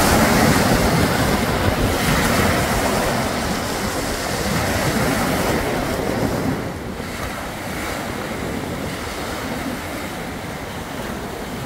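Sea surf breaking and washing onto a pebble beach, with wind on the microphone. The sound drops a little in level about halfway through.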